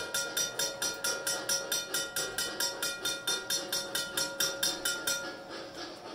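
Safetran railroad crossing bell ringing rapidly, about five strikes a second, then stopping about five seconds in once the crossing gates are down. The model train's running noise carries on faintly underneath.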